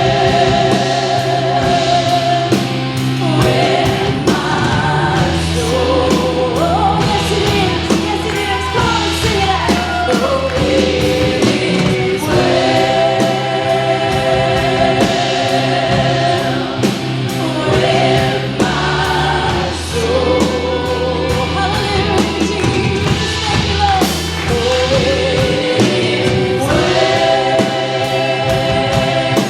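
Live contemporary worship music: singers hold long notes with vibrato over a steady bass and a regular drum beat.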